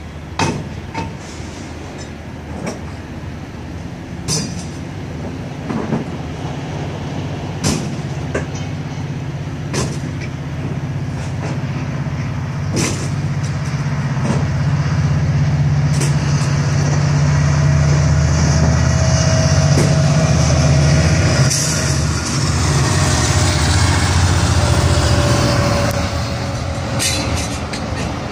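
Metrolink F125 diesel locomotive (Caterpillar C175-20 engine) running past on its train. Its low rumble builds to its loudest about two-thirds of the way through and then fades, with a whine that falls in pitch and a hiss as it goes by, and scattered sharp clicks.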